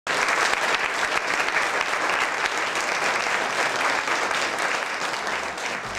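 Audience applauding, starting abruptly and easing off slightly toward the end.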